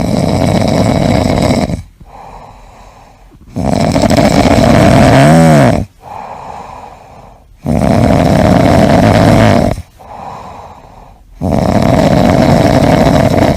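Loud snoring: four long, rasping breaths in a steady rhythm, each about two seconds long with quieter breaths between them.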